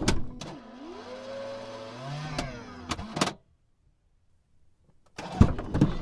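Car power-window motor whining as the glass travels: a click, then a steady whine that climbs in pitch, holds, and sags before stopping with a clunk about three seconds in. After a brief silence, more clicks and knocks near the end.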